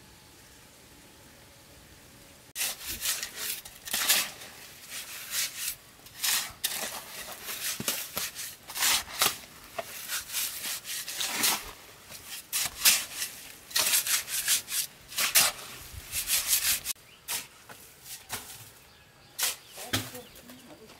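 Hoe and shovel blades scraping through a pile of wet cement mortar as it is mixed by hand, in quick, uneven strokes that begin about two and a half seconds in after a quiet opening.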